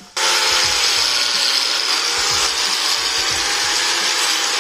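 Electric angle grinder with a wire cup brush running at a steady speed, brushing a brake caliper bracket smooth. It starts abruptly right at the beginning and holds an even, unbroken grind.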